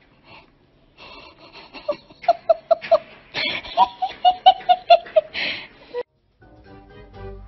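A person laughing: a rapid run of short, high giggles through the middle, breaking off about six seconds in.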